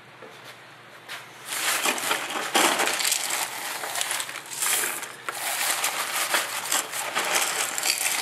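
Gloved hands working a damp hypertufa-style mix of Portland cement, sand and crushed oyster shell in a plastic tub: gritty crunching and scraping that starts about a second in and goes on irregularly.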